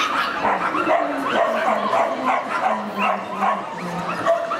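Many dogs barking and yipping over one another in a continuous chorus, with people's voices mixed in.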